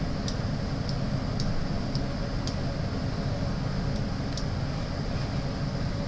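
Steady low background hum of the recording room, with a handful of light, short clicks scattered irregularly through it.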